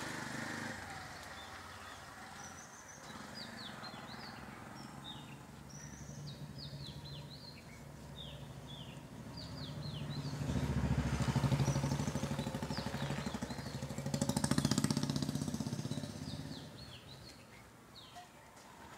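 Small birds chirping throughout in short, repeated falling notes. A small motor vehicle's engine passes close by, loudest between about 10 and 16 seconds in, then fades.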